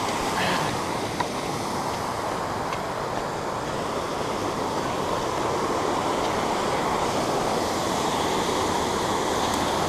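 Waterfall rushing steadily: an even wash of falling water loud enough to drown out the voices at the creek.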